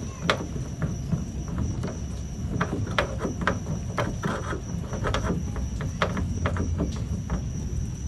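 Irregular small clicks and taps of hands working a Ford Ranger's chrome exterior door handle and key-lock trim, fitting it back onto the door, over a low rumble and a steady high tone.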